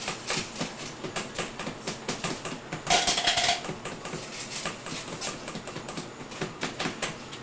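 A rapid, irregular run of light clicks and taps, with one brief louder noise about three seconds in.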